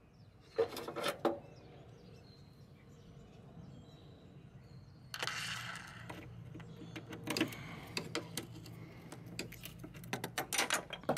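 Socket ratchet on an extension clicking in short runs as the bolt of a small power steering line holder is tightened. A brief rustle comes about five seconds in, and the clicking grows denser near the end.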